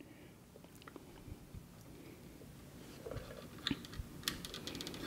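Faint clicks and rustling of plastic wiring-harness connectors and wires being handled and plugged back onto a treadmill's control board. The clicks are sparse at first, grow busier in the second half and end in a quick run of small clicks.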